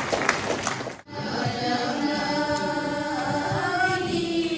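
A group of women singing a hymn together in long held notes. It begins after a sudden cut about a second in. Before the cut there is a noisy crowd with hand claps.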